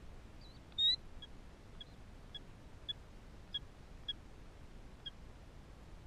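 Killdeer calling: one loud, wavering high call about a second in, followed by a run of about seven short, high peeps, roughly two a second.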